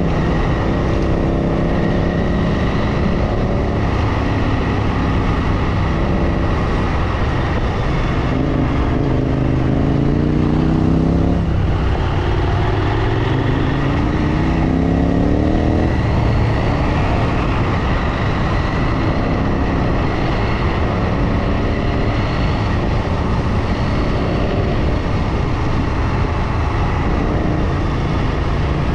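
Motorcycle engine running under way, its pitch climbing twice in the middle as it pulls through the revs, with a drop between that sounds like a gear change, over a steady rushing noise.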